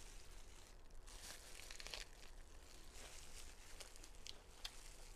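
Faint, scattered crinkling and rustling with a few sharp little clicks: clear plastic food gloves crinkling as a rice-paper-style roll of grilled tofu skin is wrapped by hand, and lettuce leaves being picked from a basket.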